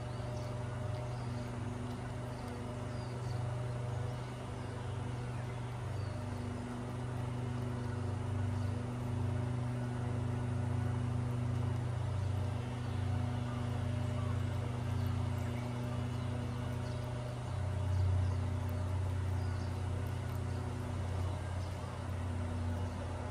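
Small engine of a grass-cutting machine running steadily at an even speed, its hum swelling slightly about three quarters of the way through.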